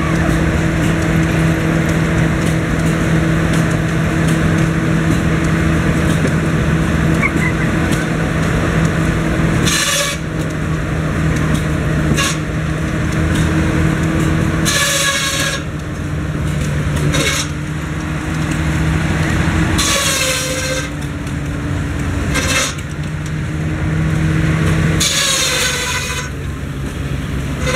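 Shingle mill's circular saw running with a steady hum and slicing shingles from a block. About seven cuts come every two to three seconds from about ten seconds in, each a rasp of about a second that falls in pitch as the blade takes the load.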